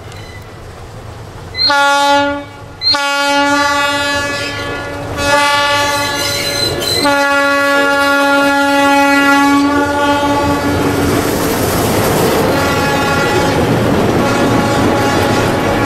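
The air horn of a metre-gauge ALCo DL537 diesel locomotive gives a short blast, then a long one held for several seconds with a brief break. The locomotives' diesel engines and the train's wheels then pass close by, clicking over the rail joints.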